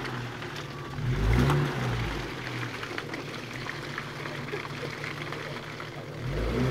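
Nissan GQ Patrol engine working through deep mud ruts: a short rev about a second in, then a lower, steady note, and another rise near the end.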